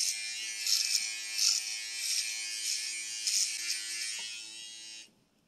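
Handheld electric shaver running against the chin: a steady motor hum with a buzzing rasp that swells every half second or so as it is drawn over the stubble. It stops abruptly near the end.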